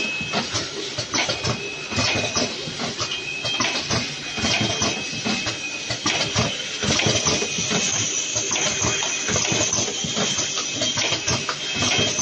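E-cigarette packaging machine running in automatic mode: a dense, continuous clatter of rapid clicks and knocks from its mechanism and the boxes moving along the outfeed conveyor. A faint high tone comes and goes over the clatter.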